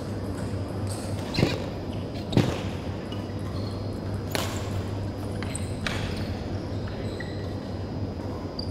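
Badminton rackets striking a shuttlecock in a rally: four sharp cracks a second or two apart, the loudest about two and a half seconds in, over a steady low hum.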